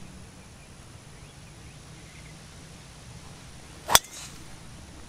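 A driver strikes a teed golf ball: one sharp crack about four seconds in, with a brief ring after it, over faint outdoor background.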